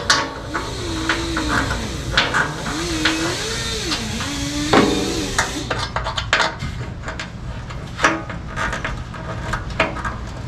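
Power drill boring the bracket holes, its motor pitch rising and falling with the trigger for about five seconds. Then a run of sharp clicks and knocks of parts being handled and set in place.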